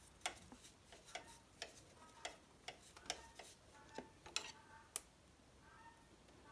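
Faint, irregular clicking, a few clicks a second, as a Phillips screwdriver loosens a clamp on an ATV's rear end.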